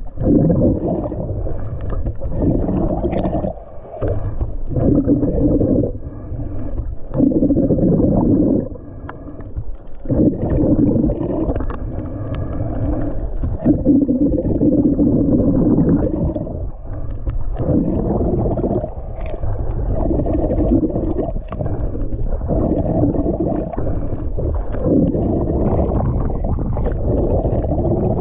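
Muffled underwater sound picked up by a submerged action camera: a low rumbling wash of moving water that swells and drops every second or two.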